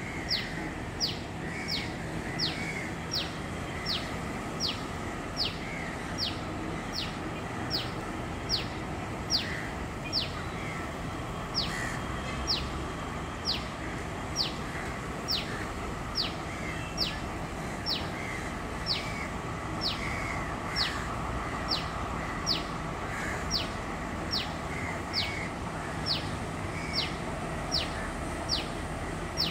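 A bird calls over and over, a sharp falling whistled note repeated evenly a little more than once a second, with softer chirps from another bird in between. Under it runs a steady low background rumble.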